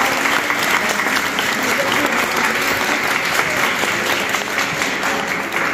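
Audience applauding: a steady round of many hands clapping in a hall.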